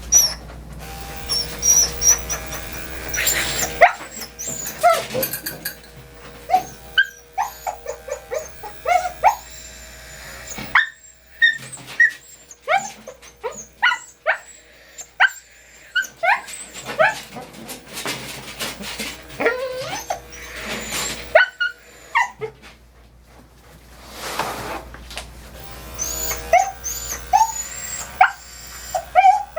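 Portuguese Water Dog yapping and whining over and over in short, sliding cries. An electric dog clipper hums for the first few seconds.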